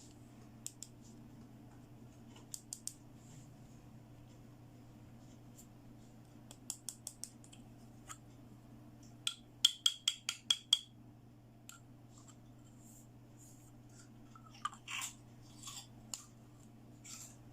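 Small plastic toy pieces clicking and tapping as they are handled, with a quick run of about six sharp clicks around ten seconds in, followed by softer scraping and rustling near the end.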